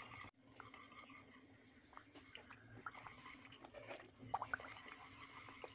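Faint, irregular ticks and soft scrapes of a wire whisk working a thick gram flour, sugar syrup and ghee mixture in a steel pan.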